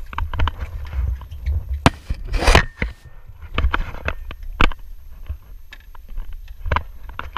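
Wind rumbling on the microphone, with scattered knocks, taps and scrapes from someone moving over a fiberglass boat's cabin top. A longer, louder scraping rustle comes about two and a half seconds in.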